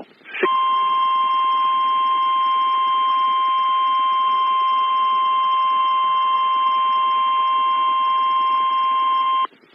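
NOAA Weather Radio 1050 Hz warning alert tone: one loud, steady high tone lasting about nine seconds, starting about half a second in and cutting off sharply just before the end, with faint static underneath. It signals a warning alert, here ahead of a flood warning message.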